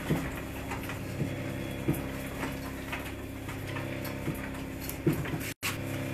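Hands kneading and smearing (fraisage) a buttery shortbread dough against a table top: soft, irregular knocks about every half second to second as the heels of the hands press down, over a steady low hum. The sound drops out for an instant near the end.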